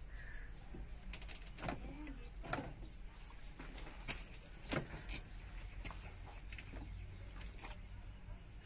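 Scattered light knocks and clicks of a PVC water pipe being handled and pressed into place against a wall, with a few short pitched blips in the first two seconds.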